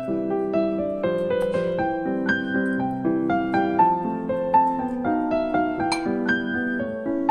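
Background piano music: a gentle melody of single struck notes over held chords.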